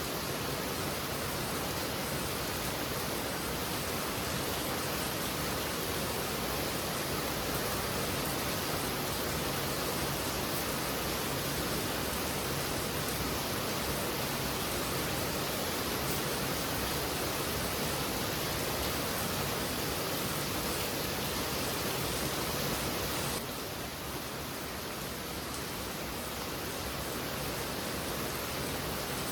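Heavy rain falling steadily, a dense even hiss; it turns slightly quieter about 23 seconds in.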